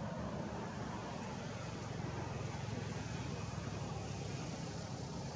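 Steady low rumble with a hiss over it, unchanging, with no distinct calls or knocks.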